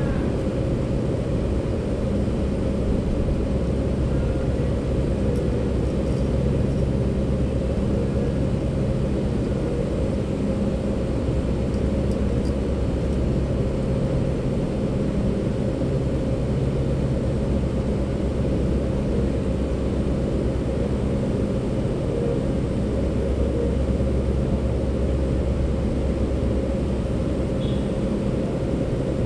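Steady low rumble, even in loudness, with faint humming tones that come and go.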